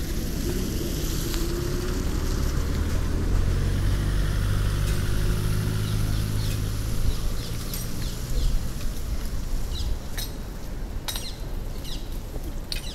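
A canal motorboat's engine running at a low, steady drone, fading away after about eight seconds. Near the end, short high chirps from small birds.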